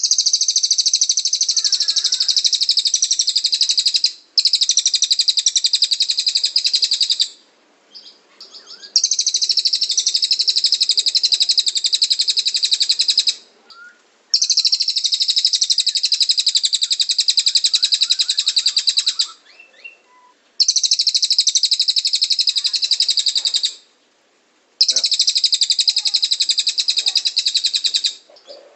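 A cililin songbird singing in long runs of rapid, high, dense trilled notes, the 'tembakan' bursts prized in training recordings. Each run lasts several seconds, with a brief pause between runs, about six times.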